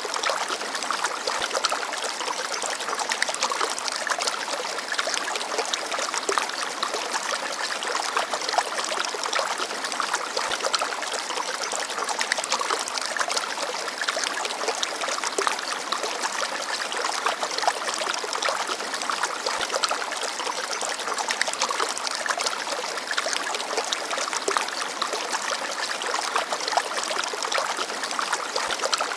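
Small forest stream babbling and trickling, a steady rush of water flecked with many tiny splashes.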